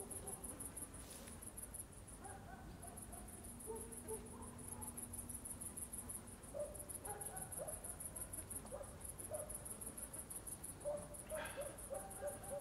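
Insects chirring in a summer field: a faint, high-pitched, finely pulsing drone, with a few short faint calls lower down.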